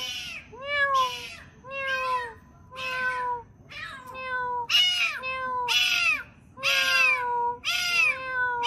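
A small black-and-white kitten meowing over and over, about once a second. Each meow is a short, high call that rises and then falls in pitch.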